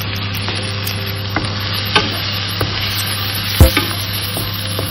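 Mixed vegetables sizzling in butter in a nonstick frying pan, stirred with a wooden spatula that scrapes and knocks against the pan; a few sharp knocks, the loudest about two-thirds of the way through.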